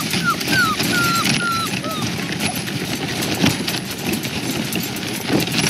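Border collie puppies whining in a wire crate, a quick run of short high whimpers in the first two seconds that then stops. Under them, a plastic wagon's wheels rumble over snowy pavement and the crate rattles and knocks.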